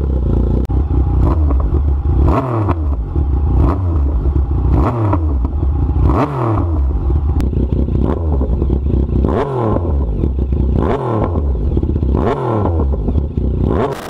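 Yamaha MT-09's three-cylinder engine through an SC Project exhaust, idling and blipped on the throttle about every one and a half seconds, each rev rising sharply and falling back to idle.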